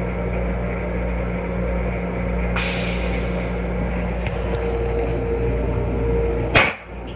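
Steady hum of an M7 railcar restroom, with a hiss that swells about two and a half seconds in and fades. Near the end the plastic toilet lid is let down with a sharp clack.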